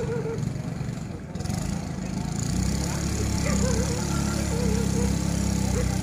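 An engine running steadily, growing fuller and louder about two and a half seconds in, with short calls over it.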